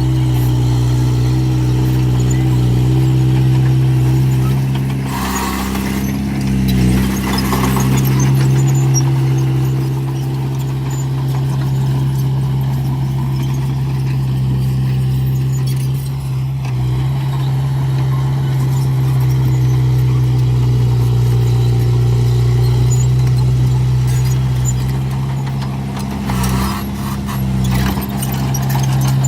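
Heavy diesel earthmoving machinery running steadily with a strong low hum. Brief higher-pitched noises come through twice, about five to eight seconds in and again near the end.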